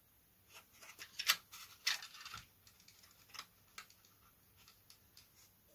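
Craft knife scoring and cutting through the plastic outer tube of a snake pushrod: faint scrapes and small clicks, busiest in the first half and thinning to a few scattered ticks.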